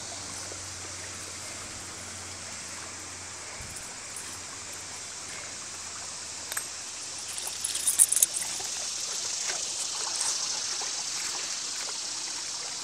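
Small creek trickling over a log, a steady hiss that grows louder partway through as the water comes closer. A brief burst of sharp clicks and splashes about eight seconds in is the loudest moment.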